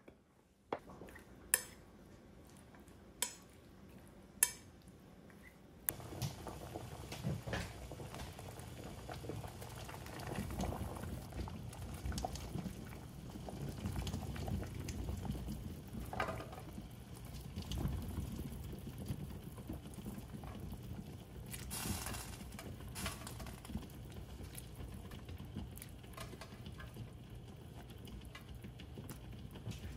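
A few sharp clicks, then from about six seconds in a stainless steel pot of fish-cake soup broth boiling steadily, with a few knocks as skewered fish cakes are put in.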